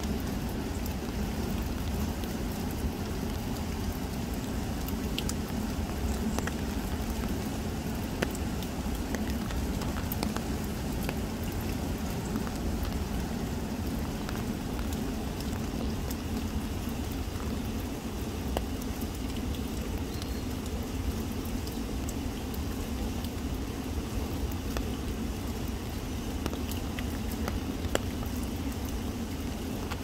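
Steady rain falling on wet leaves, with scattered sharp drop ticks, over the low, even rush of a flowing river.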